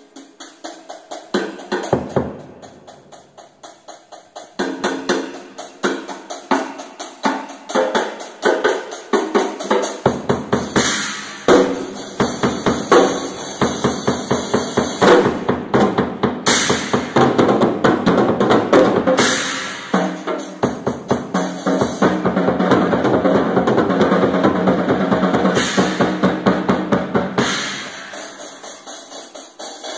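Drum kit played as a freestyle solo: fast, dense strokes on the drums and cymbals. It gets louder and fuller about ten seconds in and drops back near the end.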